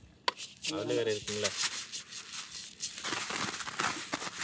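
Hot dry-roasted rice grains being tipped from a pot onto a woven bamboo winnowing tray and spread with a stick: a dense, crackling patter of grains on the bamboo, starting about a second and a half in. A brief voice speaks just before it.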